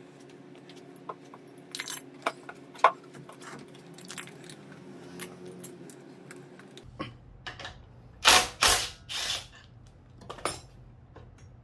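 Metal tools clinking and knocking as they are handled around a scooter engine. About eight seconds in, a cordless drill-driver is triggered in three short, loud bursts, with one more brief burst near the end.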